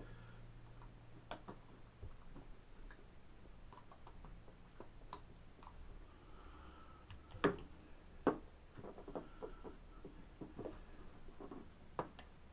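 Scattered faint clicks and light taps of a box cutter and screwdriver prying at the plugs of a LEGO display, with a few sharper ticks about seven and eight seconds in.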